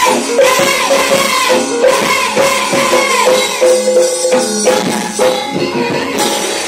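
Javanese gamelan music: a sinden's solo voice, amplified through a microphone, sings a winding melodic line over the struck bronze gamelan instruments and jingling metal percussion.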